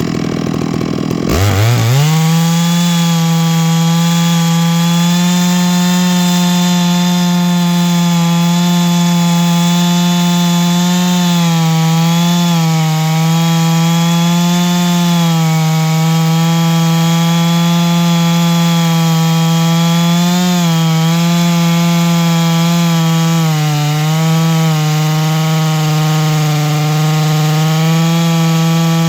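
Chainsaw on a chainsaw mill revs up from idle about a second in, then runs at steady full throttle, its pitch dipping slightly now and then as it cuts a slab from a large black oak log.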